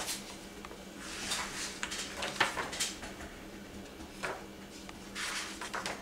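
Pages of a cookbook being turned and leafed through: a series of short papery swishes and rustles.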